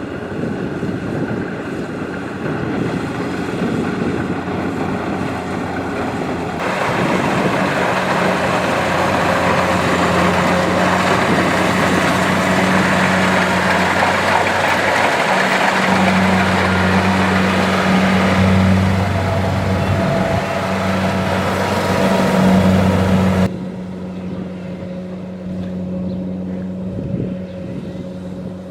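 Kubota DC-70 rice combine harvester running steadily, its engine droning with a low hum under the clatter of the machinery. The sound gets louder and fuller about a quarter of the way in and drops back abruptly about four-fifths of the way through.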